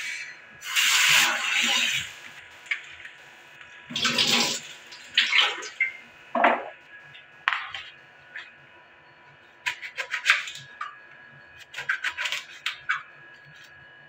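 Water running from a kitchen tap into a plastic basin in two short bursts, followed by the sharp clicks and taps of a knife slicing eggplant on a plastic cutting board.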